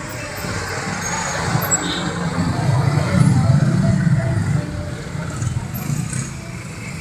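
Large diesel bus engine running, growing louder to a peak about three to four seconds in and then easing off.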